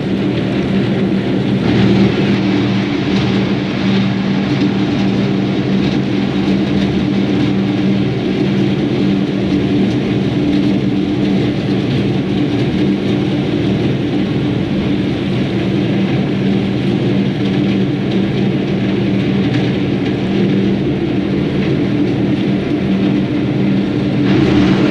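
Vaporetto water bus under way: its diesel engine runs with a steady low drone, over the constant rushing and churning of the wake water along the hull.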